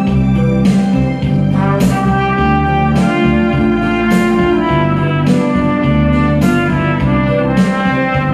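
Trumpet playing a melody of held notes, each note changing about every half second to a second, over a backing accompaniment with bass.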